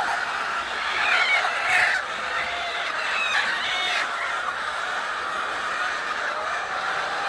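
A flock of domestic hens clucking together in a continuous chatter, with louder squawking calls about a second in and again around three seconds in.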